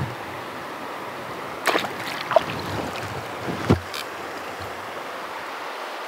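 Steady rush of a river, with a few short splashes and knocks about two seconds in and again near four seconds as a trout is handled in a landing net in the water.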